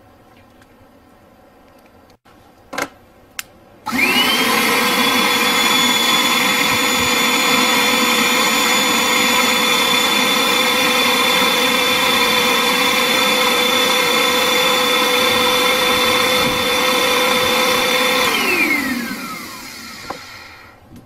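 Vacuum cleaner motor drawing smoke-laden air through a water-filled bottle: it starts with a quick rising whine, runs steadily and loudly for about fourteen seconds, then is switched off and winds down with a falling whine. Two sharp clicks come just before it starts.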